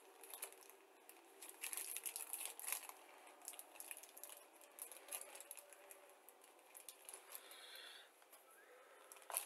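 Faint crinkling and rustling of thin plastic sprue bags with small scattered clicks, as the staples closing the bags are worked off by hand; the busiest handling comes between about one and a half and three seconds in.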